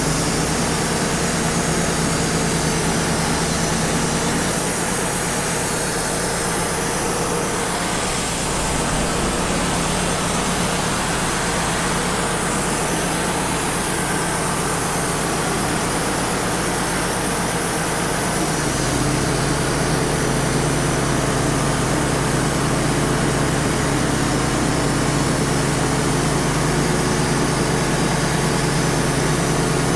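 Wood-Mizer LT35 portable sawmill running steadily, its engine tone mixed with the hiss of the sawdust blower. The engine note gets stronger about two-thirds of the way through.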